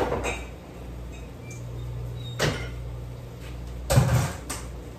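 Kitchen knocks and bumps as cabinet doors and kitchen things are handled: one knock at the start, another about halfway, and a louder cluster near the end, over a steady low hum.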